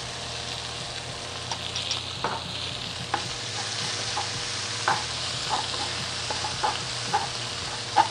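Peppers, leeks, garlic and ginger sizzling in hot oil with spicy bean paste and fermented black bean paste in a nonstick wok, the hiss growing stronger about two seconds in. A spatula stirs through the food, with occasional short clicks and scrapes against the pan.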